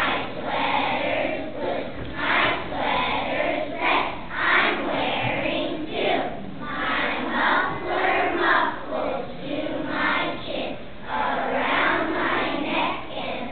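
A children's choir singing together, the massed young voices rising and falling in loudness with each phrase.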